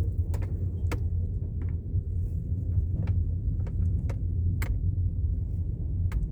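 A vehicle driving on a road: a steady low rumble, broken by irregular sharp rattles and knocks, a few each second.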